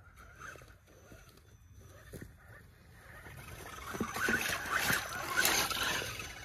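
Axial Wraith RC rock racer's electric motor whining as it crawls down a muddy bank and over a plastic pipe, its tyres churning mud and water with small knocks. The churning and splashing build and are loudest from about four to six seconds in, as it reaches the creek.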